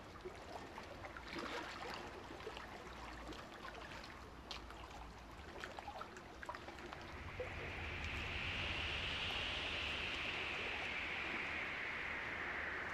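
Running water: a soft wash with scattered small splashes and drips, swelling about seven seconds in into a louder rush whose pitch slowly falls.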